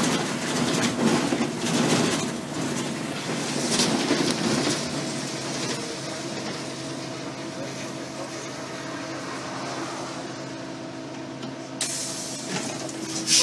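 Cabin noise of a city transit bus under way: engine drone and road noise with rattles and knocks over the first few seconds, settling into a steadier engine hum. A sharp noise comes near the end.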